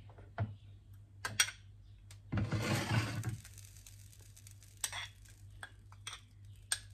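Metal spoon stirring a soy-sauce and chili-oil dressing in a porcelain bowl, clinking against the bowl's side several times, with a louder stretch of about a second of stirring noise about two and a half seconds in. A steady low hum runs underneath.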